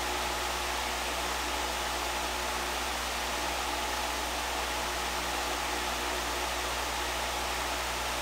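Steady, even hiss with a faint hum underneath, unchanging throughout.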